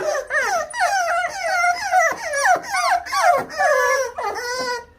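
Several five-week-old American Bully puppies whining, their high cries overlapping and sliding up and down in pitch without a pause.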